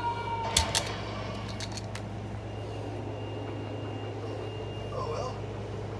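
Steady low hum, with two sharp clicks about half a second in and a few fainter ticks after them.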